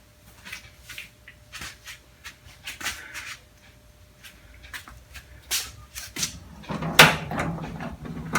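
Metal tool chest drawer and loose tools being handled: scattered light clicks and knocks, then a drawer sliding on its runners from about six seconds in, with a sharp metallic clank about a second later.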